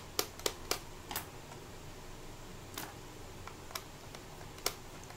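Small sharp plastic clicks and taps, several in quick succession in the first second and then a few scattered ones, as a screwdriver tip and fingers work at the yellow plastic case of a Fluke 101 multimeter.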